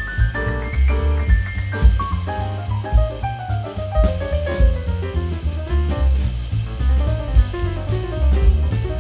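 Background jazz music with a drum kit, bass and piano playing runs of notes, among them a descending run through the middle.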